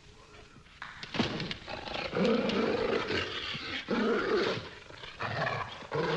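Dog growling and snarling, starting about a second in: rough, loud spells of growling broken by short pauses.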